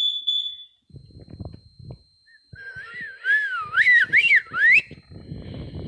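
A whistled phrase about two and a half seconds in, swooping up and down in pitch for about two seconds, with a faint steady high tone behind it and a few low knocks of handling.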